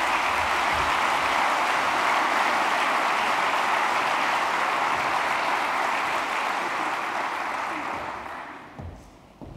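Audience applauding in a large hall: steady clapping that dies away about a second before the end.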